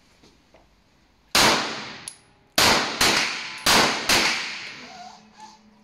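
Five semi-automatic pistol shots: a single shot, then two quick pairs (double taps). Each crack rings briefly after it.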